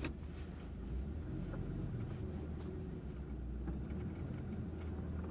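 Fiat Tempra SW's engine running, heard from inside the cabin as a steady low drone with a few faint ticks and clicks.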